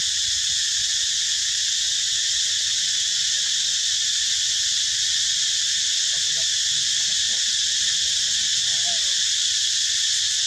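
Steady, high-pitched chorus of insects, unbroken and unchanging.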